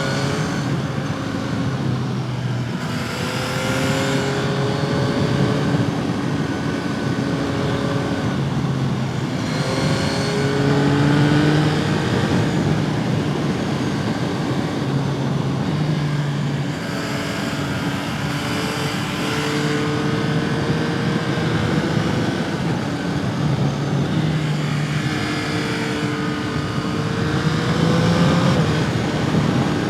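Yamaha MT-09's 890 cc three-cylinder engine and exhaust under way: the pitch climbs under acceleration several times and drops back between gears, over steady wind rush.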